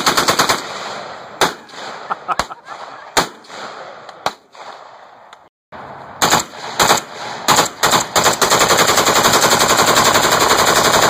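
Full-auto fire from a short-barrelled automatic rifle. A rapid burst cuts off about half a second in, followed by scattered single shots and short bursts. After a brief break come a few more shots, then a long continuous full-auto burst that starts about eight seconds in.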